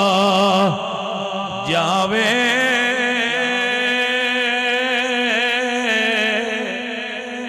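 A man's solo voice chanting a line of Punjabi verse into a microphone, in long drawn-out notes with a wavering ornament. One held note breaks off just under a second in, and a new note rises in at about two seconds and is held, slowly fading.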